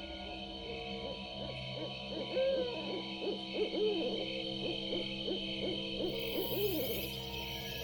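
Owls hooting: a rapid run of short rising-and-falling hoots over a steady bed of held tones, with a high hiss joining about six seconds in.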